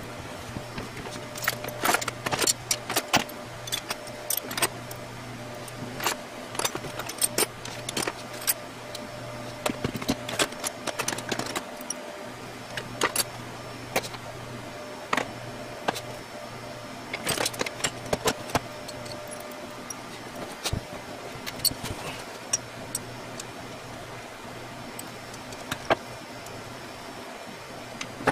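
Irregular metallic clicks and clinks of hardware and tools being handled, coming in scattered clusters, over a steady low hum.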